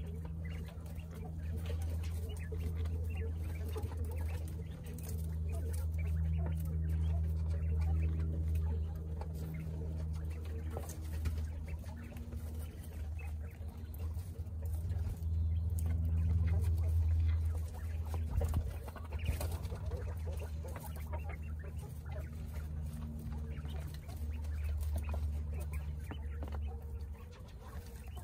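A small flock of coturnix quail dust bathing: low, soft purring calls that swell and fade, over scratching and rustling in dust and straw.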